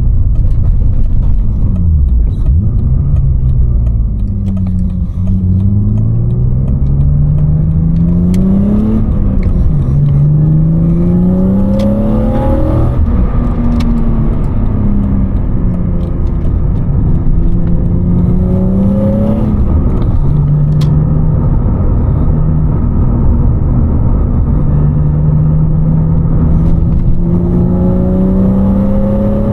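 BMW E36 325i's M50B25 straight-six with a Supersprint race exhaust, heard from inside the cabin with the windows up while driving. The engine note climbs under acceleration and drops back at gear changes several times, holding steadier while cruising in between, over a constant low road rumble.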